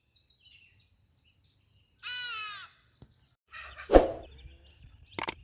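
Small birds chirping, then a crow gives one loud caw about two seconds in. A loud rushing thump follows about four seconds in, with a couple of sharp clicks near the end.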